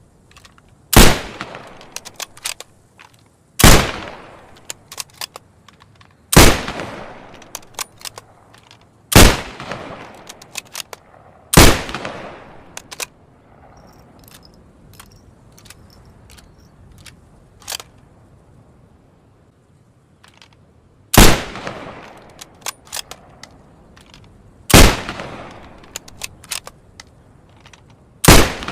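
Springfield rifle firing single shots, eight in all, each a sharp crack with a fading echo. The first five come every two and a half to three seconds, then a pause of about nine seconds before three more. Lighter clicks and clatter sound between the shots.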